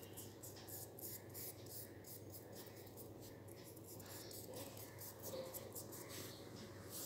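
A pen or pencil tip scratching on paper while shading in a shape, in quick repeated strokes, faint, over a low steady hum.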